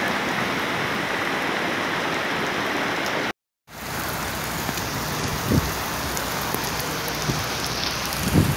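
Heavy rain pouring down in a steady hiss on pavement and roofs. The sound cuts out completely for a fraction of a second a little over three seconds in, then the rain resumes.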